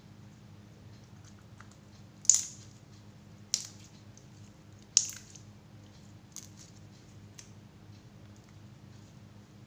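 Three sharp snaps from mini balloons, about a second and a half apart, each dying away quickly, followed by two softer clicks.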